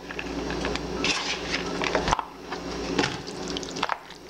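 A spoon stirring and scraping through a thick mix of macaroni, ground beef, tomato sauce and shredded cheddar in a bowl, making irregular clicks and scrapes. A low background hum cuts off about halfway through.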